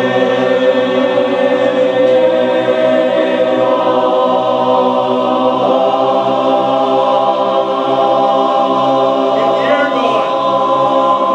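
A cappella chorus of barbershop-style voice parts (leads, basses) singing a warm-up exercise. The singers hold sustained chords that change pitch a few times.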